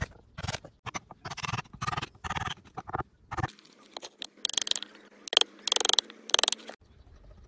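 Hammer tapping a wood chisel about twice a second, knocking bark off the edge of a thick round wooden slab. About halfway through, a few louder, harsher chisel strokes follow.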